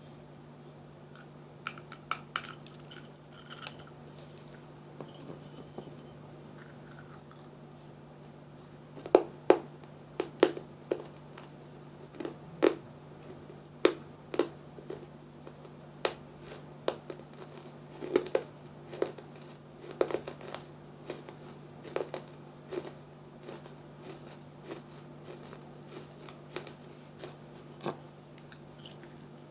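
A small baked-clay diya being bitten and chewed: sharp, dry crunches and cracks, coming about once or twice a second in the middle stretch and sparser at the start and end, over a steady low hum.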